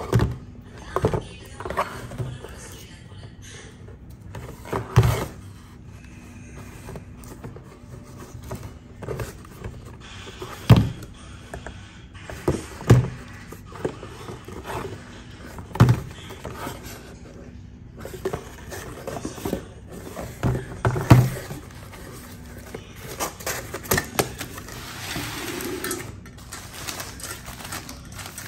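Small plastic acrylic paint bottles knocking and clacking against each other and the cardboard box as they are picked out and set back, a sharp knock every few seconds. Near the end, a soft crinkling of a plastic mailer bag.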